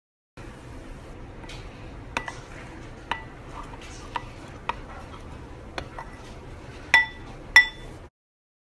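A metal spoon stirring a powdery starch-and-flour mixture in a glass bowl, clinking against the glass about eight times with a short ringing after each strike; the last two clinks, near the end, are the loudest.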